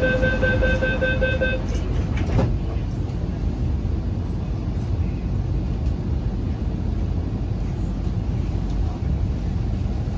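Door-closing warning beeps of an MTR Q-Train (CRRC Qingdao Sifang EMU) pulsing for about the first second and a half. The sliding doors shut with a knock about two seconds in, followed by the train's steady low rumble inside the car.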